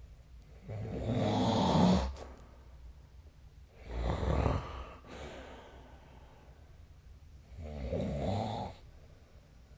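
A sleeping person snoring: three loud snores, each about a second long, coming roughly every three and a half seconds with quieter breathing between.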